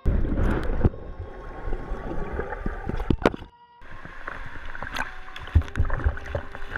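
Muffled churning and bubbling of swimming-pool water heard through an underwater camera, with several sharp clicks and knocks. The sound drops out briefly about halfway through.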